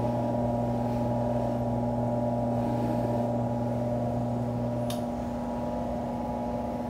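Jeweler's bench polishing buffer running steadily with a hum and a steady whine while a bezel-set ring is buffed to its final polish. About five seconds in, the lowest part of the hum drops away.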